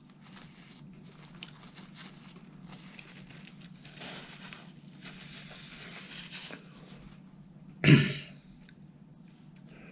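Paper napkin rustling and crinkling as it is wiped and crumpled. About eight seconds in comes one short, loud throat sound.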